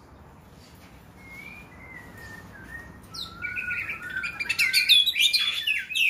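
Oriental magpie-robin (kacer) singing in full voice: a faint, drawn-out gliding whistle, then from about three seconds in a loud, fast run of varied whistled notes.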